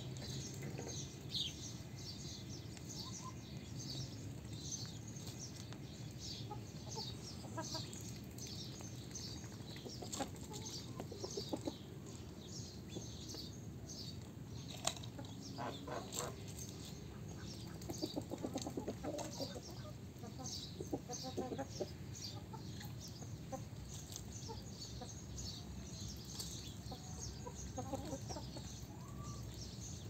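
Domestic hens clucking, with a run of clucking calls about two-thirds of the way through, over constant high chirping of birds.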